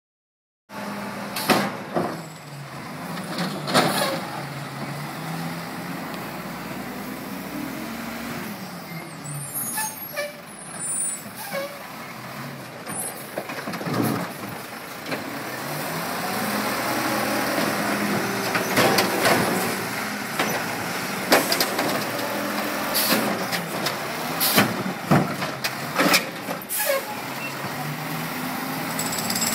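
Amrep automated side-loader garbage truck working its arm: the engine revs up and down several times to drive the lift, with repeated loud knocks and bangs as plastic wheeled carts are gripped, tipped into the hopper and set back down.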